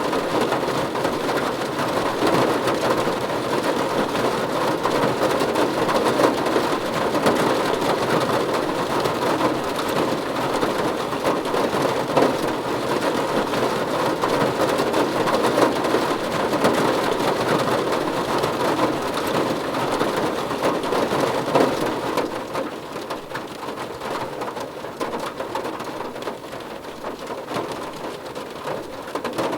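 Heavy rain falling on a car's roof and windows, heard from inside the car: a dense, steady patter of drops that eases slightly a little over twenty seconds in.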